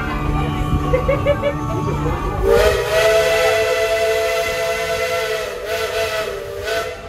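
Steam locomotive whistle blown in one long blast of about four and a half seconds, a chord of several steady tones over a hiss of steam, starting about two and a half seconds in.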